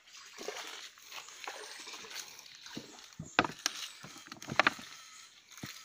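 Scattered sharp clicks and crackles of close handling over a faint hiss, loudest a little past the middle.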